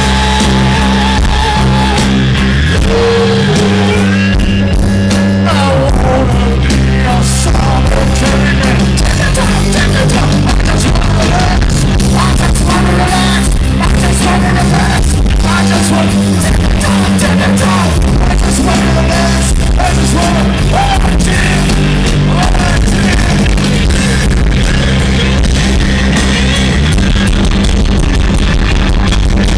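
Live rock band playing loud: electric guitar and drums, with some singing, recorded from within the audience.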